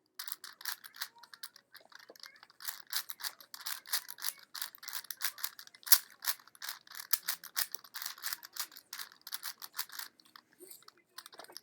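A plastic 4x4 Rubik's cube being turned quickly by hand: a rapid, uneven run of clicks and clacks as its layers snap round, thinning out near the end.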